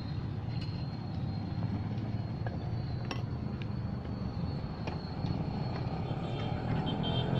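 Steel cooking pots and utensils at an idli stall clinking a few times over a steady low rumble.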